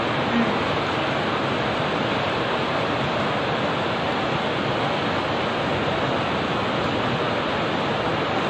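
Muddy flash-flood torrent rushing down a street, a steady, unbroken noise of fast-moving water.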